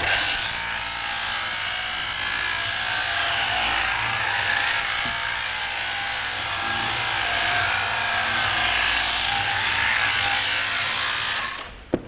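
Electric sheep-shearing handpiece running steadily, its comb and cutter buzzing as they clip through the fleece. The buzz starts abruptly and cuts off just before the end, followed by a single short click.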